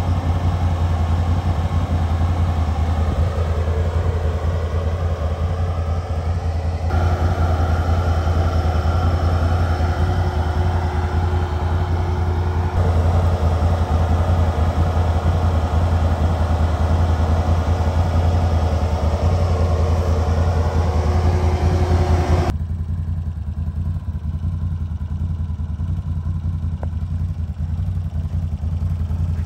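Can-Am Renegade ATV's V-twin engine idling steadily, with a low drone, changing abruptly in tone and level three times.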